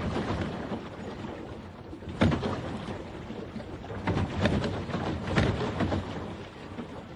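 Water gurgling and sloshing against a paddle boat, a continuous wash broken by several louder surges of splashing, about two seconds in and again around four and five seconds in.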